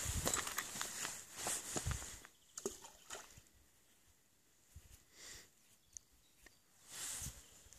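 Footsteps on dry fallen leaves for about two seconds, then stopping, leaving a few faint clicks and rustles.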